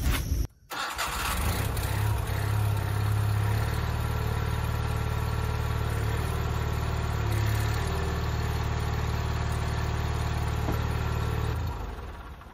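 Garden tractor engine running steadily, pulling harder for a moment about two seconds in and again a little past seven seconds as it drives the front loader's hydraulics under a test load of about 480 pounds of concrete bags. The sound fades out near the end.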